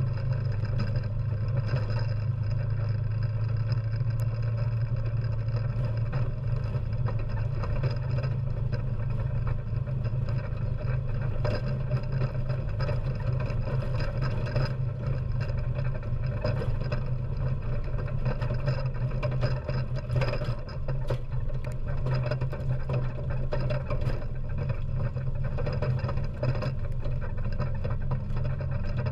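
ATV engine running at a steady speed while driving over rough dirt, heard from a camera on the front-mounted magnetic sweeper bar, with frequent small knocks and rattles throughout.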